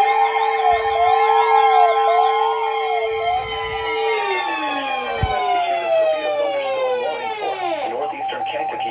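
Several weather alert radios sounding their alarms at once: steady and pulsing tones overlap with a siren-like tone that rises and falls. From about four seconds in, many of the tones glide downward as the alarms wind down, and choppy tones follow near the end, ahead of a severe thunderstorm warning.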